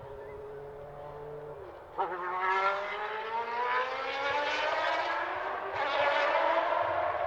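1990 Benetton B190 Formula One car's V8 engine at racing speed. It is faint and steady at first, then about two seconds in it suddenly gets much louder, its pitch climbing as the car accelerates, with another jump in loudness near the end.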